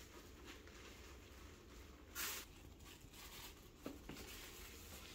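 Near silence: quiet room tone, broken by one short hissy burst of noise about two seconds in and a faint tap just before four seconds.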